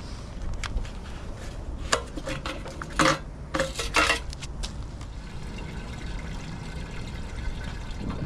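Several sharp metal clanks and knocks with water sloshing, bunched about two to four seconds in, over a low steady rumble, as a trash pump and its hose are set up to drain floodwater.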